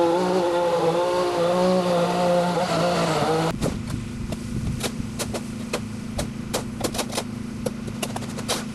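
Small gas engine of a lawn tool running, its pitch wavering slightly. A few seconds in, the sound changes abruptly to a steadier, quieter engine note with many sharp ticks scattered through it.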